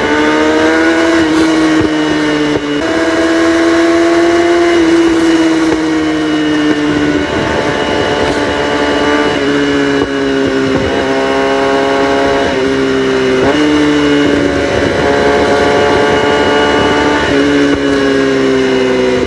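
Kawasaki ZX-6R inline-four sport bike engine running through an exhaust with the catalytic converters deleted, pulling under throttle. Its pitch climbs and then drops sharply several times, as at each upshift.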